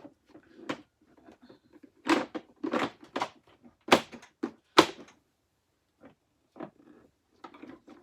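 Plastic parts of a Hoover Tempo bagless vacuum being handled and pushed back together: a run of sharp plastic clicks and knocks as the filter and dirt cup are forced into place, the loudest two about four and five seconds in, with quieter rattling between. The filter is hard to get to stay seated.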